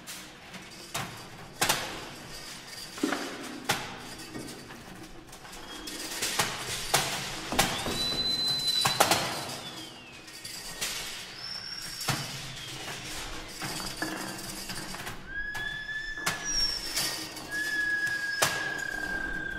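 Metallic foil sheets being crumpled and handled, giving irregular sharp crackles and crinkling. From about halfway through, thin high whistle-like tones join in: one glides downward, and later ones are held steady for a second or two.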